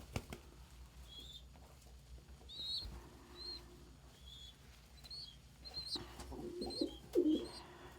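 Domestic pigeons in a loft: a string of short high chirps repeats every half second or so, and a low coo comes in near the end.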